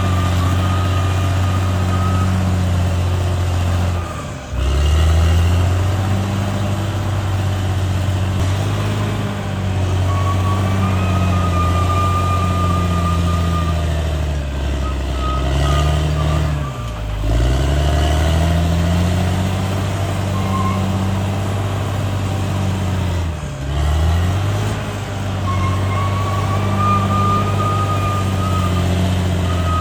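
Cat D6R XL bulldozer's diesel engine running under load. Its pitch dips sharply and climbs back three times: about four seconds in, just past the middle, and about three-quarters through. A thin high whine comes and goes over the engine.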